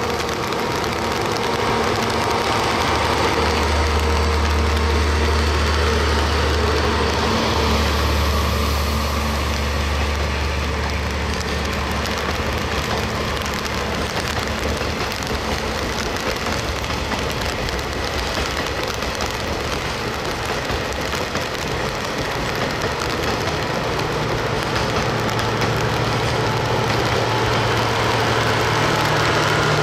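Steady rain hiss with the low drone of a diesel train engine; the drone comes in a few seconds in and fades by the middle, then a higher engine note builds near the end.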